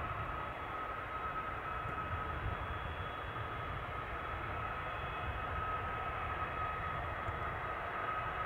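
Boeing 767-300ER jet engines running at low power: a steady high whine over a low rumble, growing slightly louder toward the end.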